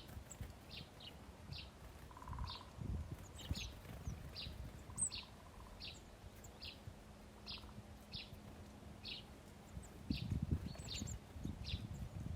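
Small birds at a feeder chirping: short, high chirps repeated about twice a second. Low rumbling thumps get louder for a couple of seconds near the end.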